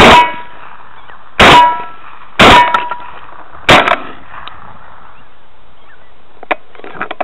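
Four shotgun shots in quick succession, about a second apart. A brief metallic ring follows each one, the steel target being hit. A couple of faint clicks come near the end.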